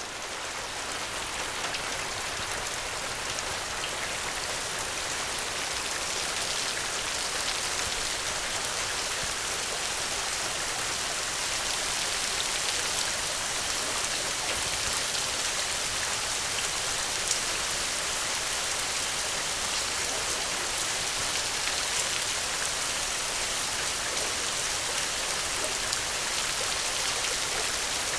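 Steady rain: a continuous fine hiss dotted with faint drop ticks, fading in over the first second or so.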